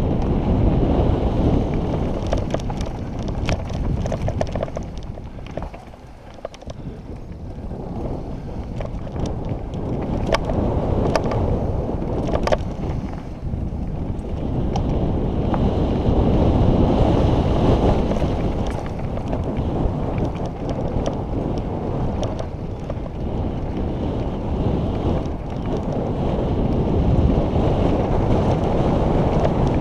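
Wind buffeting the microphone during a fast mountain bike descent on a dry dirt trail, over a rumble of tyres on loose gravel. Scattered sharp clatters come from the bike over rocks and bumps, the most around a third of the way in. The rush eases briefly about six seconds in.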